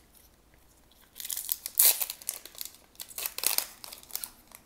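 A foil hockey card pack wrapper being torn open and crinkled by hand, in several rustling bursts starting about a second in.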